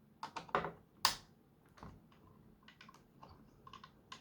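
Small plastic parts of a disassembled Nerf blaster clicking and tapping as they are handled: a string of irregular light clicks, the sharpest about a second in.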